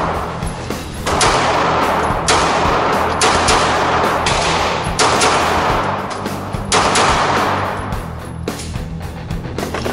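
Shots from a 9mm semi-automatic pistol fired one at a time, about one a second, each followed by a short echo, stopping about seven seconds in.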